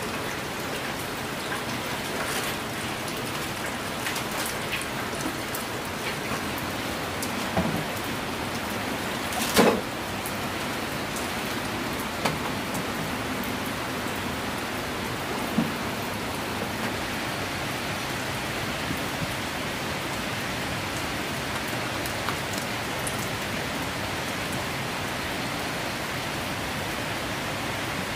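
Steady rain falling, with scattered drops ticking on a surface and a few sharper knocks, the loudest about ten seconds in.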